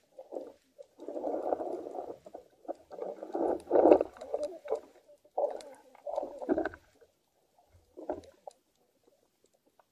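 Underwater ambience through a camera housing: muffled rushes of moving water come in irregular swells a second or two long with quiet gaps between, loudest about four seconds in, then fade to near quiet near the end.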